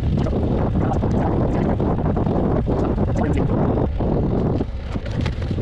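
Wind buffeting the microphone of a camera riding along on a moving bicycle: a steady, loud rumble with scattered short ticks, easing briefly near the end.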